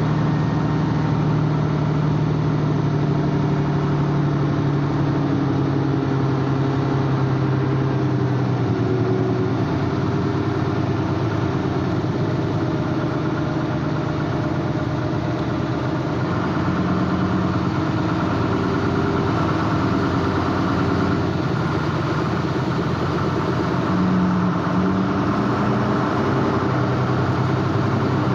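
An engine running steadily, its low hum over a constant rushing noise.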